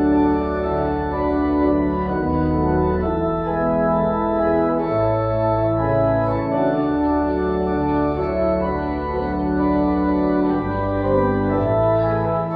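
Organ playing the postlude that closes a church service: full sustained chords over a deep held bass, the bass note changing every few seconds.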